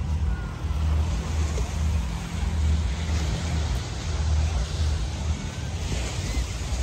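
Wind buffeting the microphone in a low, uneven rumble, over the wash of small waves breaking on a sandy beach.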